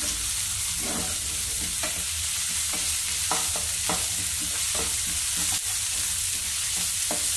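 Sliced shallots, curry leaves and ginger-garlic paste sizzling in hot coconut oil in a non-stick frying pan, stirred with a wooden spatula that scrapes and knocks against the pan about once or twice a second over a steady frying hiss.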